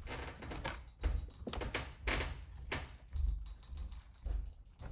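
A string of clicks, knocks and low bumps from a snake enclosure and feeding gear being handled and opened.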